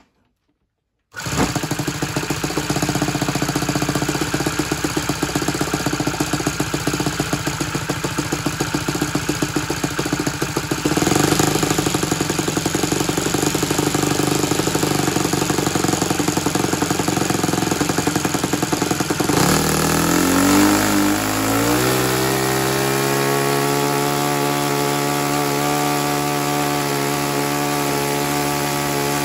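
Saito 100 single-cylinder four-stroke glow engine turning a 15x6 propeller on a thrust stand, running loud and rough-pulsed at first. About two-thirds of the way through its pitch rises over a couple of seconds to a steady high-speed run, the full-power run of a thrust test.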